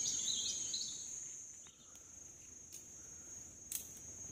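Forest insects droning on one steady high-pitched note, with birds chirping during the first second and a few faint clicks later on.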